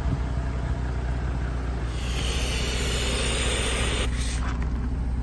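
Compressed air hissing from a Kracken tire-inflation hose fitting for about two seconds as the hose is pushed onto its quick-connect port, cutting off abruptly, then a short click as the coupling seats. A steady low hum of the idling vehicle runs underneath.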